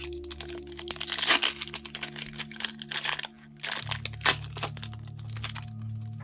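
Foil booster-pack wrapper crinkling and being torn open, with sharp clicks and crackles of the wrapper and cards being handled; the loudest rustling comes about a second in, and a single sharp crack follows past the middle.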